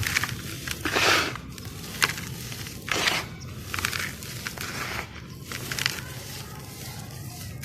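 Crunchy charcoal-black sand-cement slabs crumbling, in a string of gritty crackling bursts with sharp clicks between them; the loudest come about a second in and about three seconds in.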